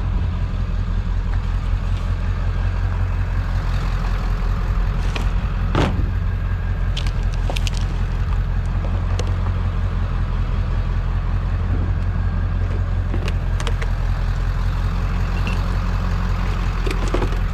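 A vehicle engine idling steadily, a constant low rumble, with a few scattered clinks and knocks of objects being handled.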